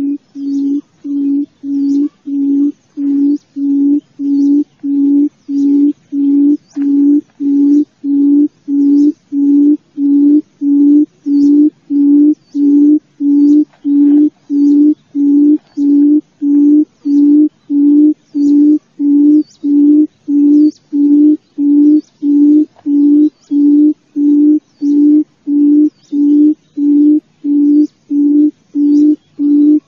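Wild buttonquail (cút rừng) calling: a low hooting note repeated steadily, close to two a second. It is a lure call used to draw the birds into a cage trap.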